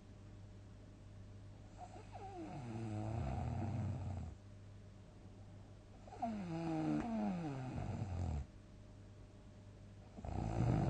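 A sleeping person snoring loudly: two long snores, each about two seconds, with a pitch that slides downward, and a third starting near the end.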